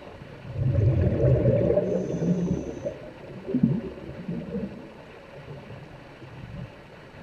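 Muffled water sound as heard underwater: a low rushing and gurgling, loudest for about two seconds near the start, then quieter.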